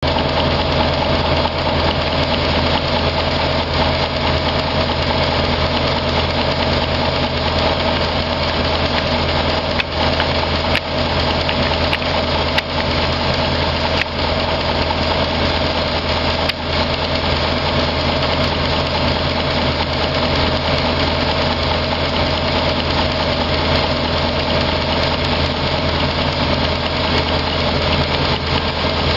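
Kozo A3 1½-inch-scale locomotive chassis running steadily on compressed air at about 65 psi, its wheels, rods and valve gear turning, with air hissing out of the steam chest, which has no gaskets fitted yet. A few sharp clicks come through in the middle.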